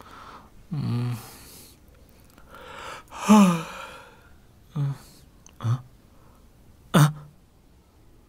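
A man's wordless vocal sounds: two drawn-out sighing groans with falling pitch, then three short grunts spaced about a second apart.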